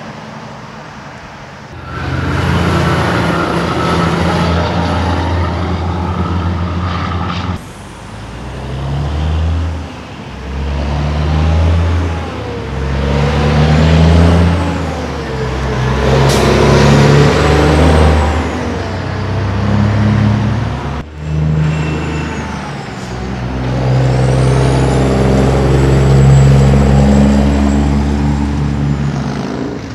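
Diesel engines of big-rig semi trucks pulling past one after another, each engine note climbing and then dropping back in steps as the truck works up through its gears. A faint high whistle rises and falls over the engine, and the sound changes abruptly a few times as one truck gives way to the next.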